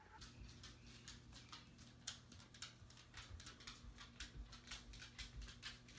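Near silence: faint room tone with a low steady hum and faint irregular clicks, about four or five a second.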